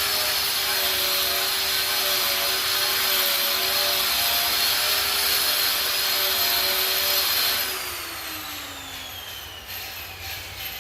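Angle grinder cleaning rust off a steel welding table top, running steadily with a high hiss under load. About eight seconds in it is switched off and winds down, its pitch falling.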